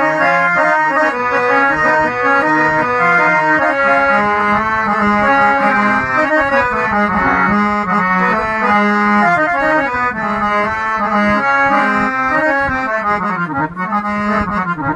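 Harmonium with two sets of reeds and an upright (khadi kanghi) reed board, played steadily with a running melody over lower held notes.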